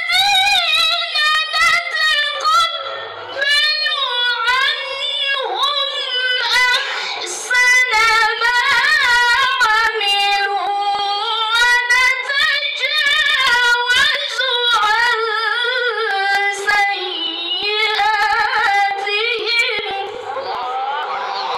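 A woman reciting the Qur'an in a melodic, chanted style: long held notes with ornamented, wavering pitch, broken by short pauses for breath.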